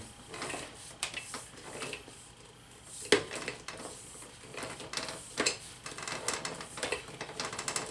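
Clicks and knocks from the hand wheel and spreading mechanism of a ProForce leg stretcher as the wheel is turned. The clicks are scattered at first and come quicker in clusters over the last two seconds.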